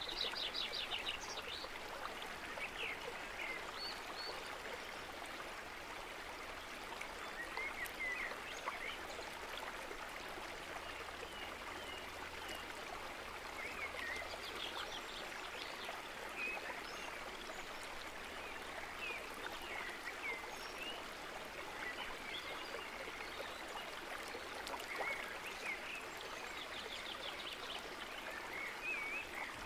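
Steady rushing of running water, like a stream, with short high chirps scattered through it every few seconds.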